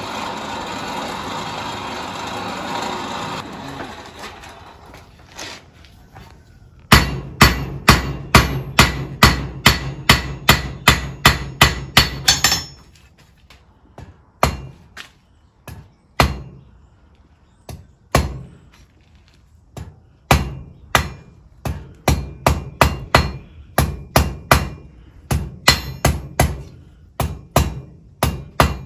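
A forge blower runs steadily for the first few seconds and then dies away. Then a hand hammer strikes hot rebar on a steel anvil with ringing blows: a quick run of about a dozen strikes, three single blows a couple of seconds apart, and then steady hammering at about two blows a second. The rebar is being forged into a wall hook.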